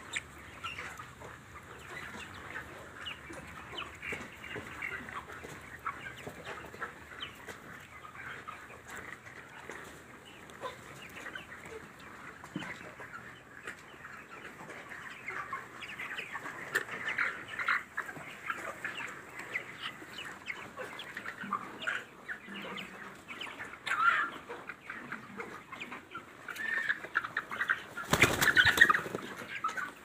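A large flock of white broiler chickens clucking and cheeping, many short calls overlapping, getting busier and louder in the second half. Near the end comes a brief loud rustling burst, the loudest moment.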